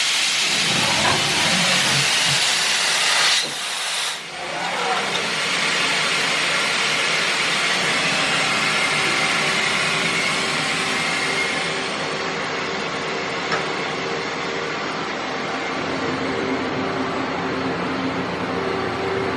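Mazak Variaxis 630-5X five-axis machining center running with a steady hiss that dips briefly about four seconds in, then goes on a little quieter, with a faint steady tone joining it in the second half.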